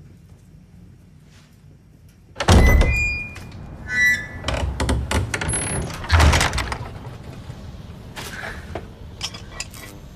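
A sudden loud thump about two and a half seconds in, followed by a few seconds of rustling and knocks that fade off.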